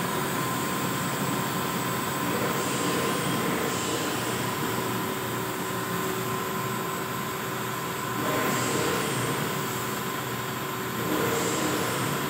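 Automatic roll printing machine running as packaging film is printed: a steady mechanical noise with a constant whine, briefly louder twice in the second half.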